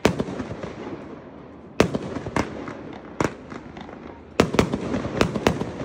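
A 200-gram consumer fireworks cake firing, about eight sharp reports of shots launching and bursting at uneven intervals, several close together near the end, with crackling between them.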